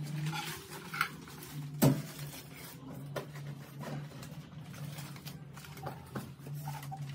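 Things being handled and shifted in a metal cupboard: scattered clicks and knocks, with one sharper knock about two seconds in, over a steady low hum.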